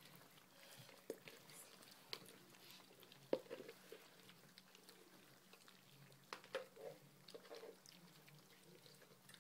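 Golden retriever puppies eating puppy porridge from metal bowls: faint lapping and scattered small clicks, with one sharper knock about three seconds in.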